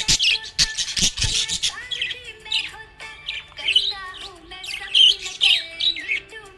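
Budgerigar chirping and warbling in rapid, varied notes with quick pitch glides, with a few sharp clicks in the first second and a half.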